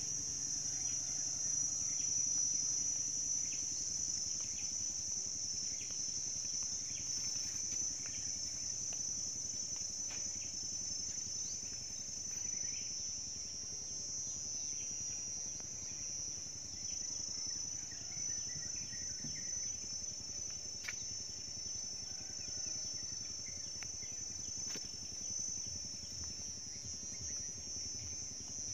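Insects trilling in one continuous, steady high-pitched drone, with faint short chirps scattered through it.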